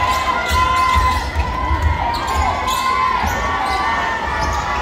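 Basketball game in a gym: a ball bouncing on the hardwood court several times, with short sneaker squeaks and background voices.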